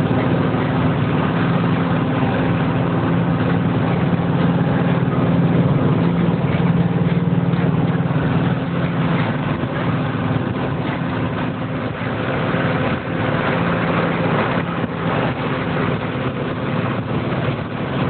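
A motor vehicle's engine running steadily: a low, even drone over constant road noise.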